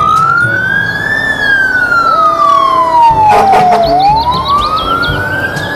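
Fire truck siren wailing, rising over about a second, falling slowly for nearly three seconds, then rising again, over the low rumble of the truck. A brief burst of noise comes about three seconds in.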